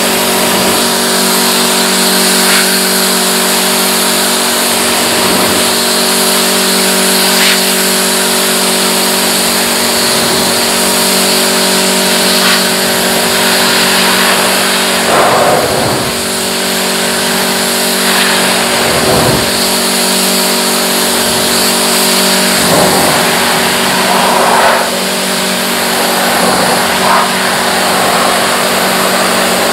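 Pressure washer running steadily: a constant motor hum under a continuous hiss of spray, with a few brief swells as the spray moves.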